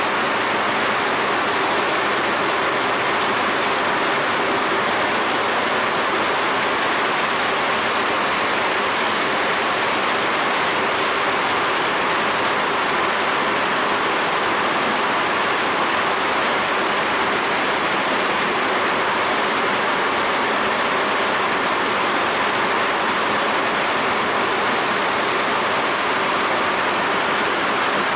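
Heavy rain falling, a steady, even rushing hiss with no crackles or knocks.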